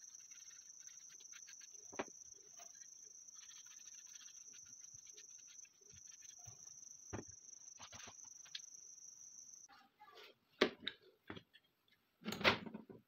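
Faint cloth dabbing and rubbing on an AK-47 handguard, with small clicks and a steady high whine behind. About ten seconds in, a few sharp knocks as the handguard is handled against metal rifle parts.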